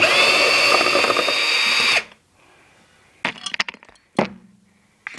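Power drill running at a steady high whine for about two seconds, backing out a screw, then stopping suddenly; a few light clicks and knocks of handling follow.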